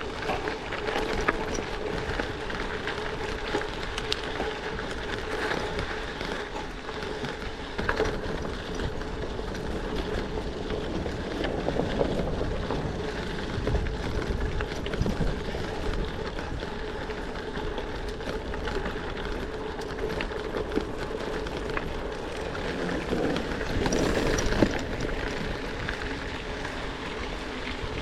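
Gravel bike riding on a dirt road: steady rolling noise from the tyres on gravel and rattle of the bike, with wind on the helmet or handlebar camera's microphone, swelling briefly a few times.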